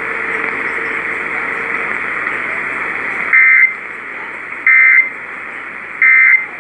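Steady AM radio hiss, then three short EAS end-of-message data bursts (the SAME 'NNNN' code), each a harsh digital tone lasting about a third of a second, about a second apart, closing out the flash flood warning.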